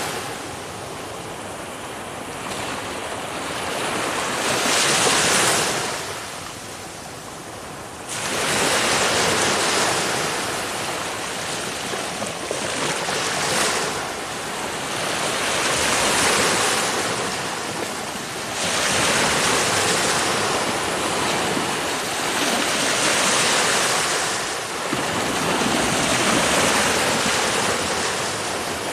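Ocean waves breaking and washing on the shore: surf noise that swells and fades every few seconds, one wave hitting suddenly about eight seconds in.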